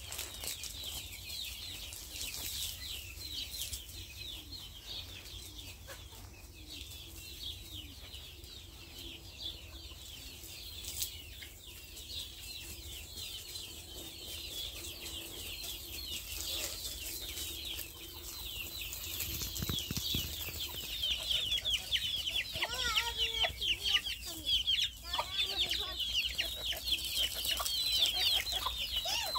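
Domestic chickens clucking, with the clucks becoming louder and more frequent in the last several seconds, over a constant high chirping of small birds.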